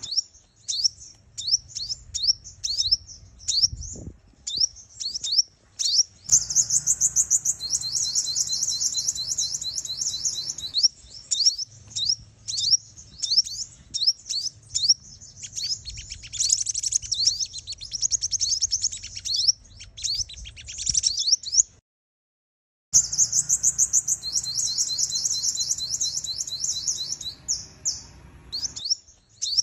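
Female sunbird calling: rapid high chirps and fast, dense trills, a decoy call of the kind used to excite male sunbirds. The calls stop dead for about a second about two-thirds of the way in, then resume.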